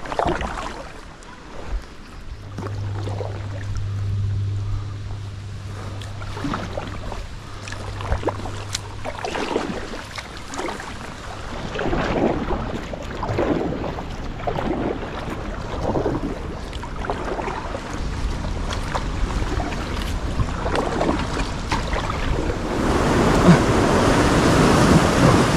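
Kayak paddle strokes dipping and splashing in the river, about one stroke a second, with a low steady hum for several seconds near the start. Near the end a steady rushing noise grows louder.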